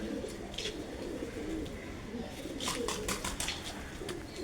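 Domestic pigeons cooing in low, warbling coos, with a few short sharp clicks about two and a half to three and a half seconds in.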